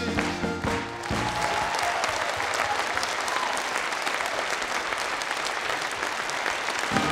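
A large theatre audience applauding: dense, steady clapping. The last held notes of a song die away about a second in, and music starts again near the end.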